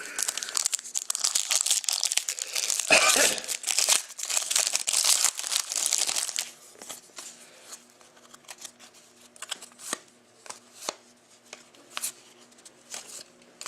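Trading card pack wrapper being torn open and crumpled, a dense crinkling for about six seconds, followed by scattered light clicks and taps of cards being handled.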